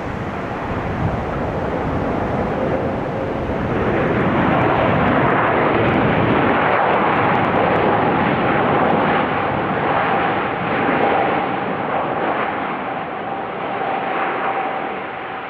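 Airplane engines running loud, the noise swelling about four seconds in, with a steady whine through the rest.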